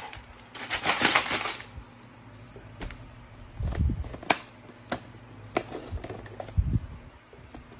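Plastic vacuum flask being shaken and handled, its shattered glass liner rattling inside: a loud burst of rattling about half a second in, then a series of sharp clinks and knocks.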